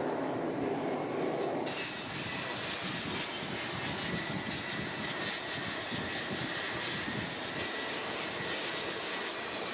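A carrier jet's turbojet running at high power on the steam catapult, a steady roar with a high whistle over it. Before an abrupt change about two seconds in, a deeper rushing roar from a jet in flight.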